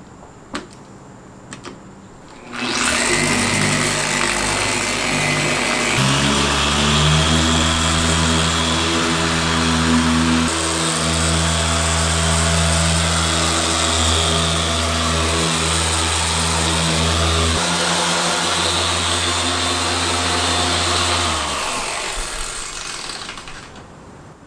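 Griot's Garage dual-action orbital polisher with a foam pad starts about two and a half seconds in and steps up to a higher speed a few seconds later. It runs steadily on the car's paint, then is switched off and spins down near the end. A few light knocks come before it starts.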